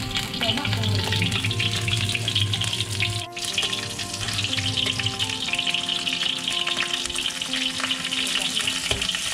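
Garlic and belacan (shrimp paste) sizzling in hot oil in a steel wok, stirred and turned with a metal spatula. The frying hiss is steady, with a brief break about three seconds in.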